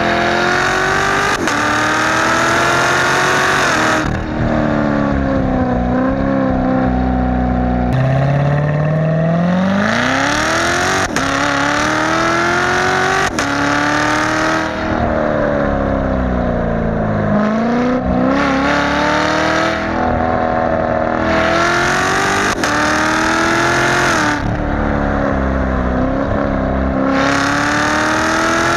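C7 Corvette Z06's supercharged V8 through an X-pipe exhaust, loud throughout, revving up under acceleration again and again. Each time the pitch climbs steadily, then drops or falls away as the throttle comes off, before climbing again.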